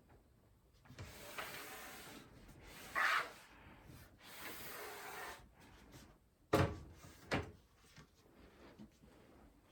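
Hands working on a PC case and its parts: rubbing and scraping for a few seconds, loudest in one short scrape about three seconds in, then two sharp knocks about a second apart.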